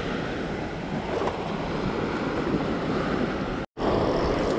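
Sea surf washing onto the beach, with wind noise on the microphone. The sound drops out for an instant near the end.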